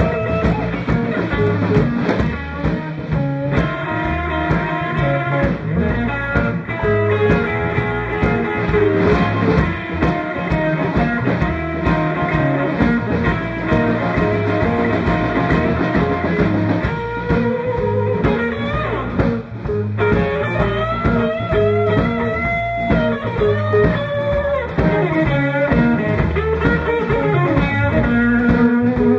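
Live blues band playing: an electric guitar carries a lead line with bending, sliding notes over drum kit and electric bass.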